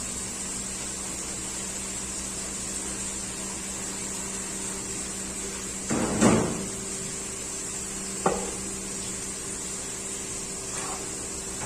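Steady hum of a kitchen appliance or fan, with a loud clatter of cooking utensils about six seconds in and a sharper single knock about two seconds later.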